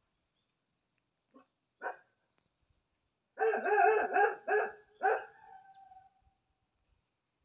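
Puppy barking: two short single yaps, then a quick run of about five high barks in the middle, the last drawn out into a held note that fades away.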